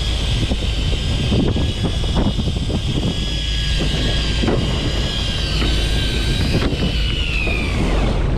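Fishing boat's engine running with a steady low rumble and wind on the microphone, a high whine wavering over it and falling away near the end, and scattered light knocks.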